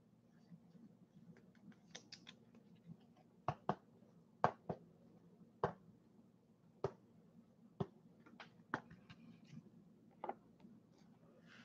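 A dozen or so sharp clicks and taps at irregular intervals, bunched a few seconds in and thinning out toward the end, over a faint steady hum.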